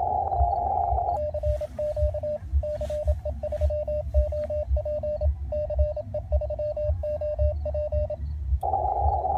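Morse code (CW) from a ham-radio HF transceiver's speaker: a single tone of about 600 Hz keyed in dots and dashes for about seven seconds. Before and after it the receiver's narrow-filtered band hiss is heard, and the hiss drops out while the code is sent.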